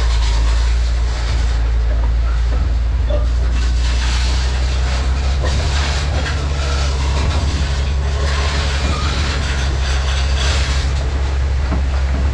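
Dump truck's engine running with a steady low drone as the truck creeps along, with the continuous rush of 23A crushed gravel spilling from the tailgate onto the road.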